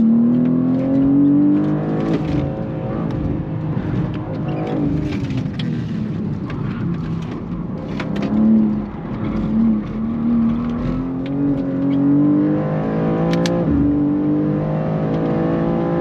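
BMW G87 M2's twin-turbo inline-six heard from inside the cabin while driven hard on track: the revs climb steadily and fall back several times. The loudest peak comes a little past halfway.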